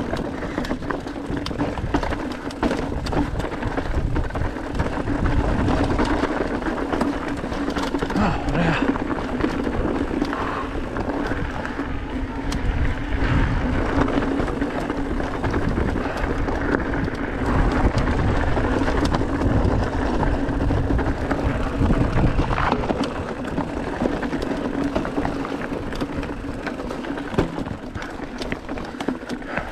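Mountain bike riding over a rough, rocky dirt trail, heard from a camera on the bike or rider: tyres crunching over stones and the bike rattling in many sharp clicks and knocks, over a continuous rushing noise and a steady low hum.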